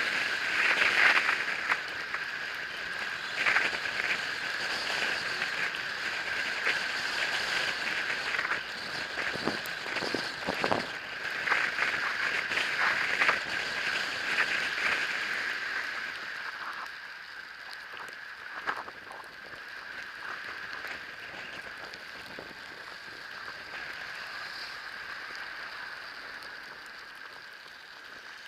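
Electric bike being ridden through falling snow: a steady high motor whine over a constant hiss, with scattered knocks from bumps. The sound grows quieter a little over halfway through.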